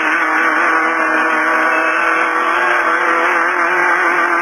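Off-road race car's engine running hard at a steady high pitch, heard from inside the car over a constant rush of road and wind noise; the pitch sags a little about three seconds in.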